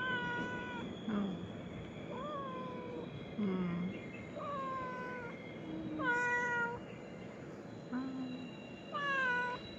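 A tabby cat meowing again and again, about one call a second. Longer, slightly falling meows alternate with short, low chirp-like calls.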